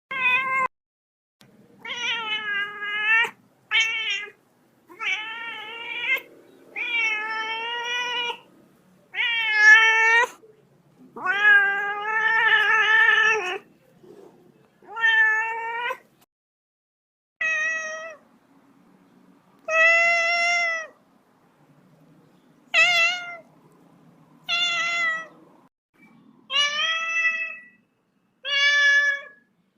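A kitten meowing over and over, about fourteen separate meows each lasting around a second, with short pauses between them.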